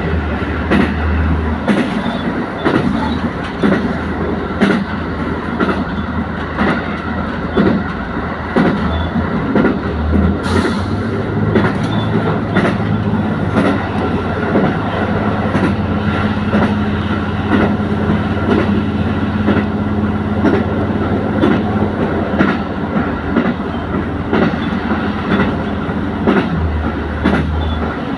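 Diesel railcar running along the line: a steady low engine drone with the wheels clicking and clattering over the rail joints.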